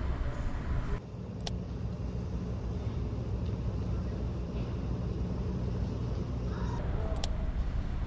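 Steady low outdoor rumble, of the kind made by distant engines or wind, whose character changes about a second in, with a faint sharp click shortly after and another near the end.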